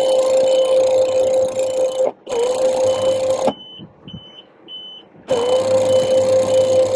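Electric hydraulic pump of a sailboat's in-boom mainsail furling system running with a steady whine. It stops briefly about two seconds in, then again for nearly two seconds near the middle, and its pitch dips each time it restarts under load. A short high electronic beep repeats about twice a second throughout and is heard on its own while the pump is stopped.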